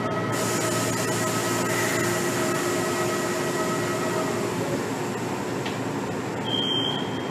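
Inside a standing Kotoden 1300 series electric train: steady hum of onboard equipment, with several steady tones that fade out about four and a half seconds in. A broad hiss comes in just after the start.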